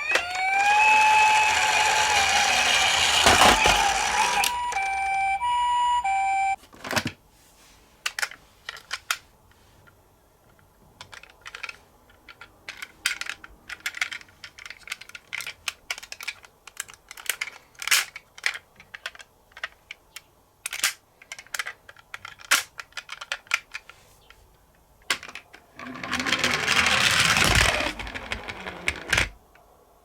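Toy emergency-vehicle minicar siren wailing up and down, then switching briefly to a two-tone hi-lo chime and cutting off about six seconds in. After that come many small, sharp plastic clicks and clatters. A loud rushing whir lasts about three and a half seconds near the end.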